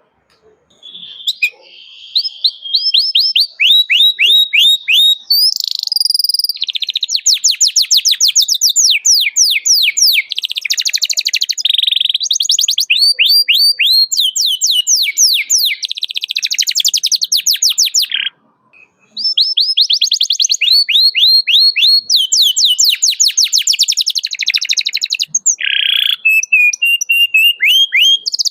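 Domestic canary singing: long, rapid high-pitched trills of repeated sweeping notes that change from one phrase to the next, with a brief pause about eighteen seconds in.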